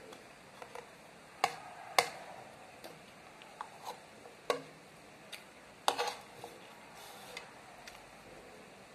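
Metal spoon and fork clinking against a bowl while eating: a handful of sharp, irregular clinks, the loudest about two seconds in and again around six seconds, with fainter taps between.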